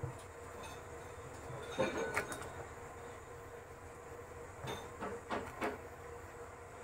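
Wooden ghutni twirled between the palms in a metal pot of milk, blending in powdered milk so it does not lump. Its head knocks and rattles against the pot in two short clusters, about two seconds in and again about five seconds in, over a steady low hum.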